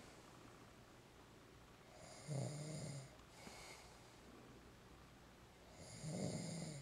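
A man snoring in his sleep: two snores about four seconds apart, each a low rattling tone lasting about a second, with a fainter breathy sound just after the first.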